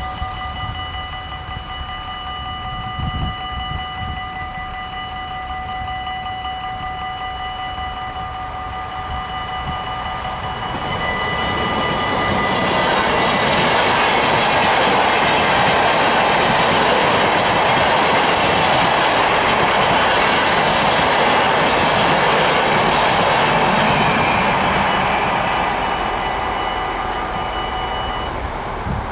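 Dutch level-crossing warning bell ringing steadily while an NS Intercity passenger train passes. The train's rumble and wheel noise build from about a third of the way in, are loudest through the middle, then fade. The bell stops near the end as the barriers begin to lift.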